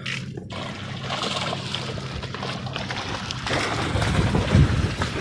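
A boat motor running steadily at a low hum, with water splashing and sloshing around it. About three and a half seconds in, a deeper low rumble grows louder.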